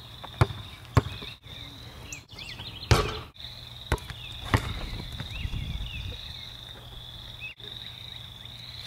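A few sharp thuds of a basketball hitting an outdoor sport court, over a steady high drone of insects and scattered bird chirps. The thuds fall in the first half, the loudest a second in and three seconds in.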